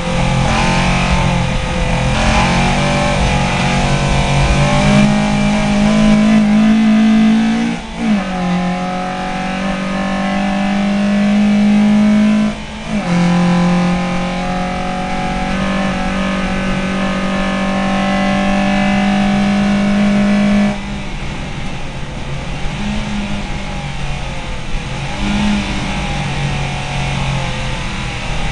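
VW Lupo race car engine heard from inside the cabin, revving hard under acceleration, with two quick breaks in the note about eight and twelve and a half seconds in as gears are changed. The engine then holds a steady high note until about two-thirds of the way through, when the note and level drop suddenly as the driver comes off the throttle, and it runs lower and more unevenly after that.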